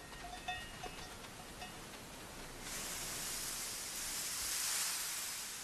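Soft, even hiss that comes in about halfway through, after a few faint short chirps.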